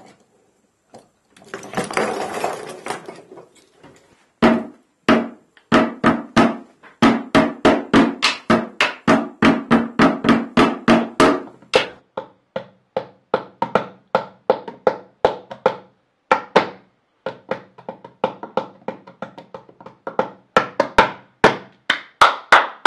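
A rapid series of hollow percussive knocks with a pitched ring, about three to four a second, after a short rattle near the start. About halfway through the knocks turn sparser and irregular, with short pauses.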